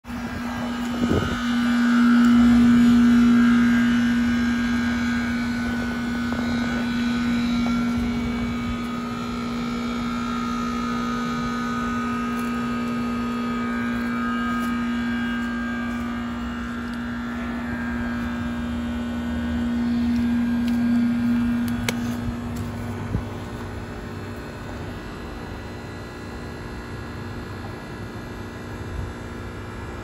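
2008 Trane XB13 heat pump's outdoor unit running in its defrost cycle, its reciprocating compressor giving a steady hum. The hum fades out about two-thirds of the way through, and there are sharp clicks about a second in and around 22 seconds.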